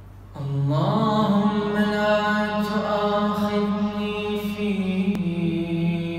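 A solo male voice chanting an Arabic Ramadan supplication (dua) unaccompanied, starting about half a second in with long, drawn-out melodic notes that shift slowly in pitch. A faint steady low hum sits underneath, and a single click is heard about five seconds in.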